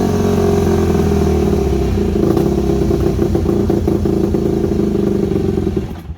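Yamaha WR250F four-stroke single-cylinder dirt bike engine running through a White Brothers stainless exhaust, just brought back to life. The carburettor still needs a rebuild and there is a suspected blocked idle jet. The sound cuts off abruptly near the end.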